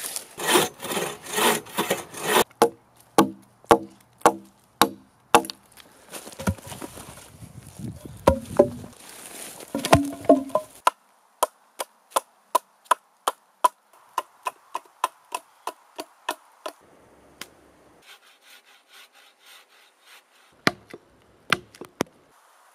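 Hand tools working a freshly peeled log: a drawknife stripping bark in quick rubbing strokes, then a Gränsfors axe chopping into the wood in sharp separate strikes, a steady run of about two a second through the middle and a few fainter blows near the end.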